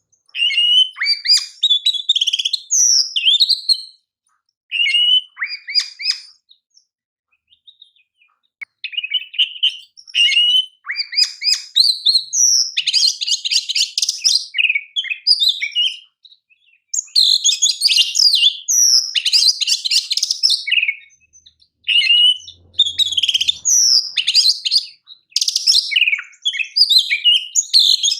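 Oriental magpie-robin (kacer) singing loud, varied phrases of sweet whistles and fast chattering trills, broken by short pauses, with the densest rapid runs around the middle and near the end.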